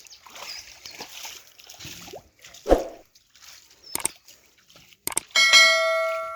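A few knocks and a heavy thud, then a metal object is struck once, about five seconds in. It rings with a clear pitched tone that fades away over about a second and a half.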